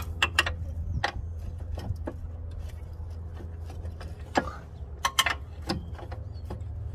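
Scattered metallic clicks and taps as a bolt is pushed and wiggled into the lower bracket of a new front strut assembly and the steering knuckle, with a few sharper clicks a little past five seconds. A steady low hum runs underneath.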